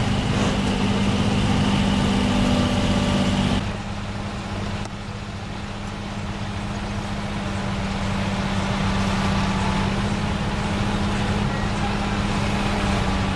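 Heavy-haul truck's engine running steadily as it moves an oversize load on a multi-axle trailer: a low hum with steady tones. The sound drops suddenly about three and a half seconds in, then builds back up.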